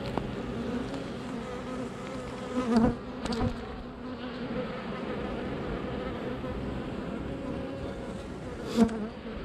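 Honeybees buzzing over an opened hive, a steady low hum of many bees at once. The buzz swells briefly louder about three seconds in and again near the end.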